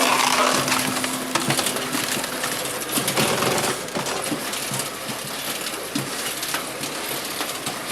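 Hydraulic log splitter forcing logs through its blades: two loud bursts of crunching and cracking wood about three seconds apart, with split pieces knocking and clattering in between.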